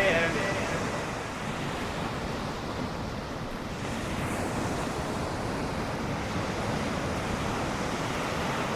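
Steady wash of ocean surf with no distinct wave crashes, after the tail of a song fades out in the first second.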